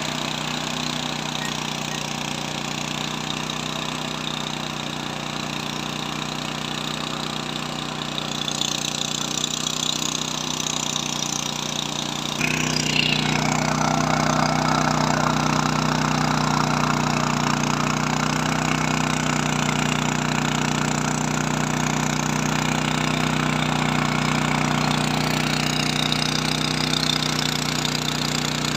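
Six-rotor agricultural spraying drone's propellers running with a steady hum, turning suddenly louder about twelve seconds in.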